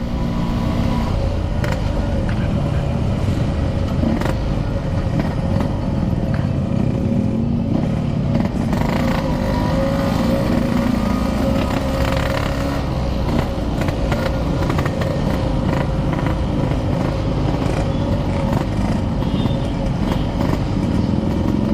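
Yamaha RX King motorcycle's 135cc single-cylinder two-stroke engine running steadily while the bike is ridden along the road.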